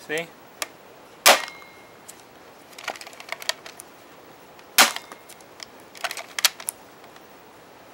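Modded Nerf Hammershot toy blaster firing twice, sharp loud snaps about a second in and near five seconds, with smaller plastic clicks of the hammer being cocked and the cylinder rotating in between and afterwards. The shots are loud because its air restrictors have been taken out.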